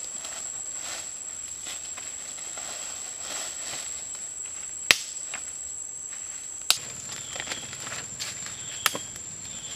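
Steady high-pitched insect drone, with faint rustling and three sharp clicks, the loudest sounds, about halfway through, about two-thirds in and near the end.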